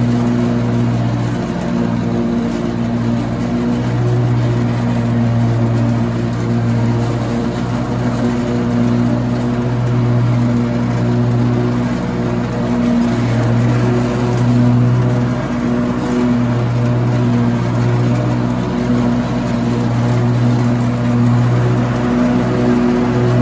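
Lawn mower engine running steadily at a constant speed while mowing grass, its note swelling and easing slightly now and then.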